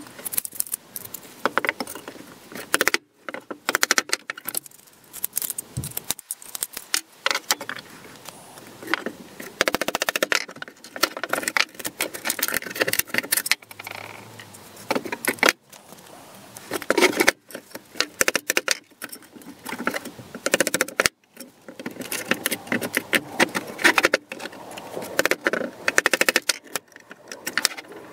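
Irregular metallic taps, clinks and rattles: a hammer and screwdriver working on a rusty steel folding machete, with its loose steel parts knocking on the wooden bench.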